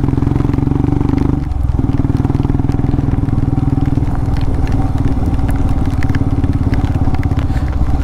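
Motorcycle engine running steadily while riding, its note dipping briefly about a second and a half in before picking up again.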